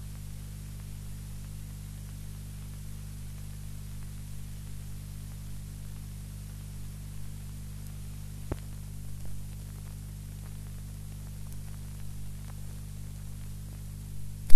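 Cassette tape playback in a gap between tracks: steady tape hiss over a low mains hum. A single sharp click comes about eight and a half seconds in, and a few loud thumps come at the very end.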